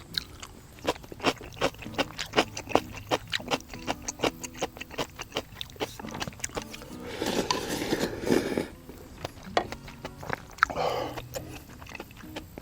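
Eating ramen noodles close to the microphone: a quick run of wet chewing clicks, then a long noisy slurp of noodles a little past halfway and a shorter slurp near the end.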